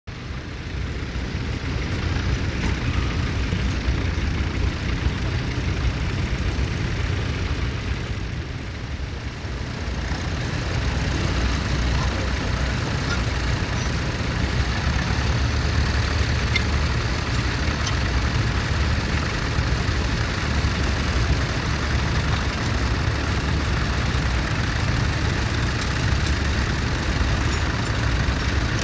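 Vintage tractor engine running steadily with a low, pulsing note, a little quieter about eight seconds in.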